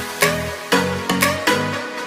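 Electronic dance music with a beat of sharp hits over low bass notes.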